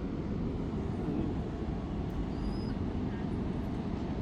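Steady low rumble of seaside wind and surf, with a brief faint high whistle about two and a half seconds in.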